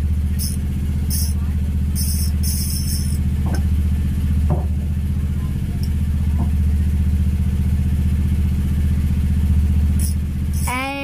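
Steady low engine drone throughout, with short high buzzes from the fishing reel's drag giving line a few times in the first three seconds and once more near the end: a big grouper is still pulling line against a drag that has already been tightened.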